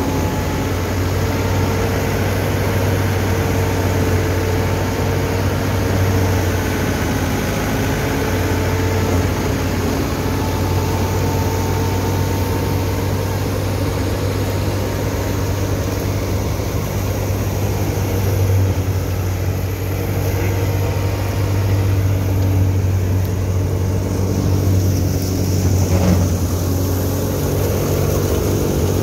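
Massey Ferguson 385 tractor's four-cylinder diesel engine running steadily under load, driving a wheat thresher through its PTO shaft. The thresher's drum and fans add a steady whine over the engine's low drone.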